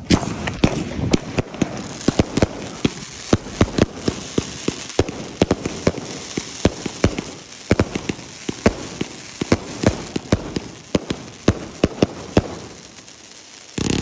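A 341-shot consumer fireworks cake firing in rapid succession: sharp shots and bursts come several a second over steady crackling. It thins out near the end, then one loud shot goes off just before the end.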